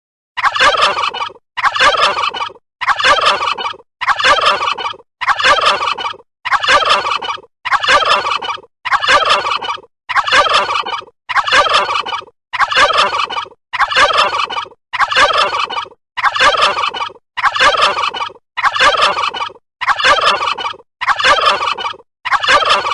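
Turkey gobbling: the same call of a little over a second repeated about sixteen times at an even pace, like a looped recording.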